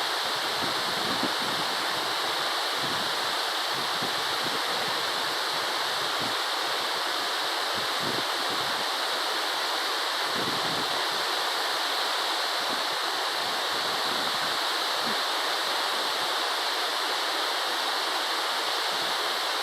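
Stream water flowing, a steady rush of water.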